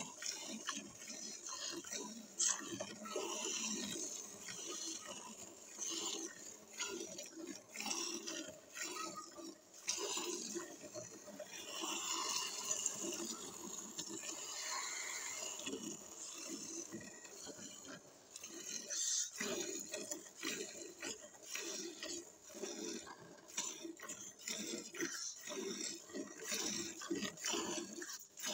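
Hand-milking: thin jets of milk squirted from the teats into a steel bucket of frothy milk, in quick repeated squirts as the hands squeeze in turn.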